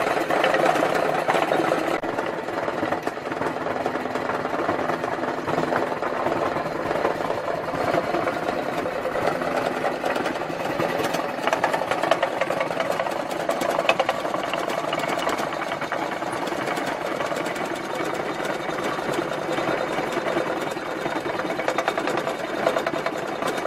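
Homemade jaw crusher running under its belt drive, its jaws clattering in a fast, steady rattle as it crushes stone, with a few louder knocks now and then.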